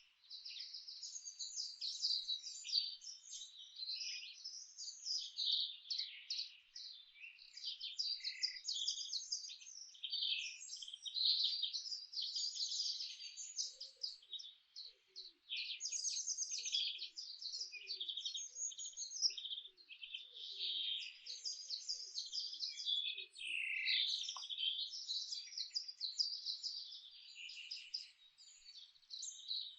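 Several songbirds singing and chirping at once, a dense chorus of quick, overlapping trills and chirps with no pause, and fainter low-pitched calls in the middle.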